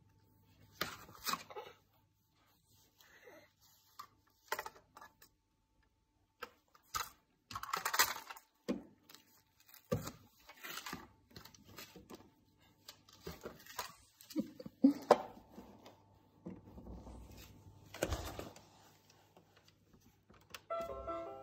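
Irregular taps, knocks and rattles of a baby handling a plastic toy barn and slapping the windowsill. A short electronic tune from the toy starts right at the end.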